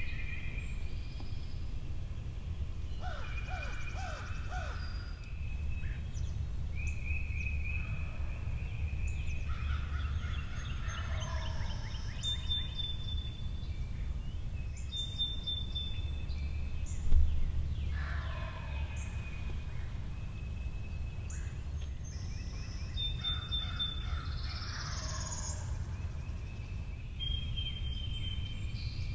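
Wild turkey gobbling, four rattling, falling gobbles several seconds apart, with songbirds singing and a steady low rumble throughout. A single low thump a little past halfway is the loudest sound.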